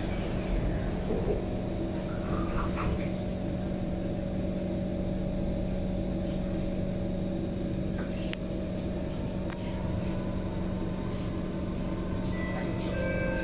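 Inside an SMRT C151 train car: the steady hum of the stationary train's onboard equipment, with a few clunks in the first few seconds as the passenger doors close. Near the end several steady whining tones come in from the traction drive as the train starts to pull away.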